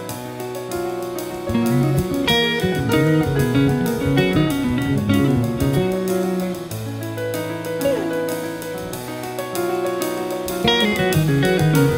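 Jazz band playing live, with a six-string electric bass line under electric guitar and piano. The music gets louder about a second and a half in, eases off past the middle, and swells again near the end.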